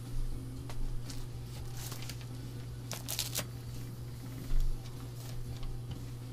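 A person moving about a small room: footsteps, rustles and a few clicks, with a low thump about four and a half seconds in, over a steady low hum.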